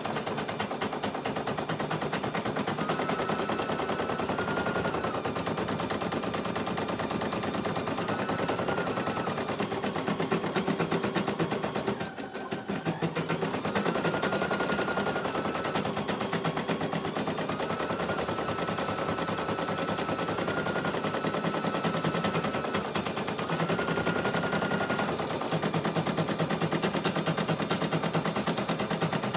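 Brother PE800 single-needle embroidery machine stitching at speed, its needle making a rapid, steady clatter. A faint whine steps up and down in pitch now and then, and the clatter dips briefly about twelve seconds in.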